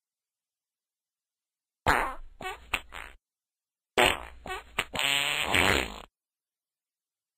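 Two fart sounds, each opening with a sharp blast and breaking into sputters. The second, about two seconds long, ends in a steadier pitched stretch.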